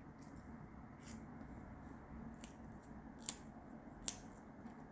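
A few faint, sharp clicks over quiet room tone, the two loudest about three and four seconds in.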